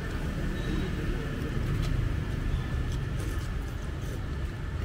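Steady low rumble of street traffic, with a few faint clicks of a spoon and chopsticks against a soup bowl.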